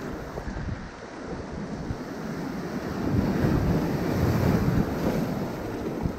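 Sea waves breaking and washing over rocky shoreline boulders, the surf swelling louder past the middle and easing near the end, with wind buffeting the microphone.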